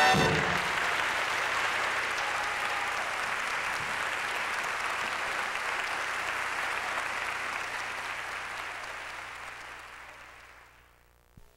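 Audience applause as the music stops, dying away over the last few seconds.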